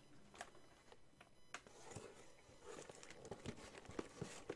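Near silence: room tone with faint scattered clicks and a few soft knocks of small objects being handled.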